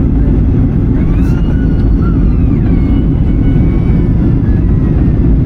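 Airliner on its landing approach: a loud, steady low rumble of engines and rushing air. Faint whistling tones glide up and down from about a second in until near the end.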